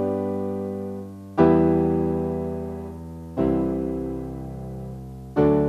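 Background music of slow keyboard chords, a new chord struck about every two seconds and left to ring and fade.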